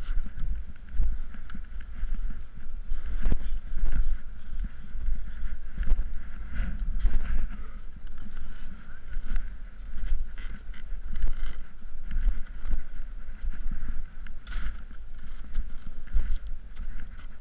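Muffled low buffeting and rustling as a snowboarder shifts and struggles on his back in deep snow, picked up by a body-mounted GoPro, with scattered short knocks and crunches.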